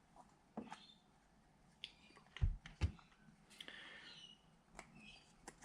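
Small parts of a vintage Vespa speedometer being handled and pulled apart: scattered light clicks and two soft knocks close together about two and a half seconds in, with brief rustling.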